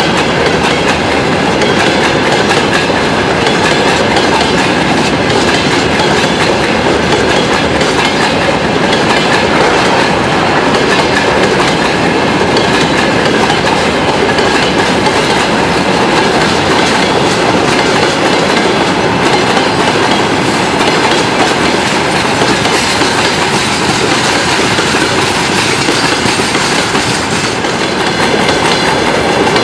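Freight train of open-top gondola wagons and tank cars rolling past, a steady loud rumble of steel wheels on the rails with the clickety-clack of the bogies passing over rail joints.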